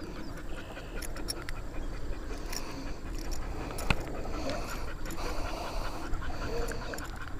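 Breathy, rustling noise with a few faint clicks while a bass is being landed by hand at the water's edge.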